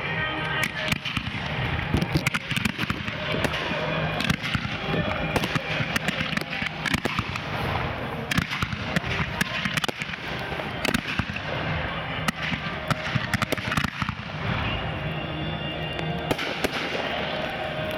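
Fireworks display: aerial display shells launching and bursting in quick succession, many sharp reports every second.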